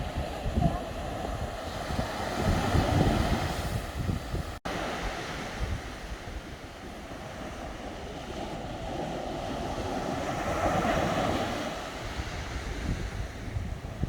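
Sea waves washing onto the shore, surging twice, with wind rumbling on the microphone.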